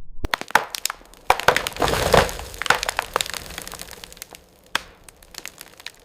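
Wood cracking and crashing as a tree comes down: a run of sharp snaps and splintering, densest about two seconds in, then scattered crackles that die away.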